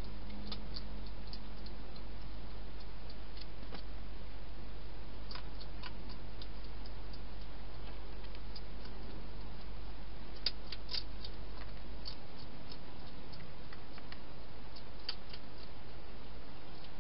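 Steady hiss with scattered faint clicks and ticks as a wild hedgehog moves about inside a clear plastic feeding box; a few louder clicks come close together about ten to eleven seconds in.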